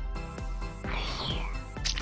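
Background music with a steady beat, and a brief swishing noise about a second in.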